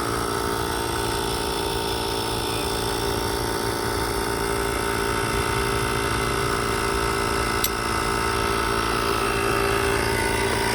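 Portable electric tire inflator running steadily, pumping a freshly plugged tire up to a preset pressure.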